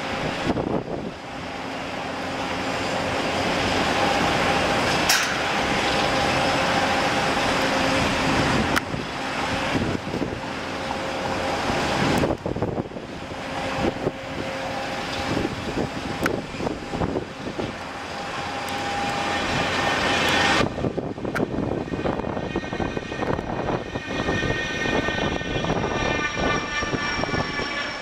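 Jet airliner engines: a loud rushing noise with steady whining tones. About twenty seconds in the sound changes suddenly, and then a cluster of whining tones slowly falls in pitch as the jet passes.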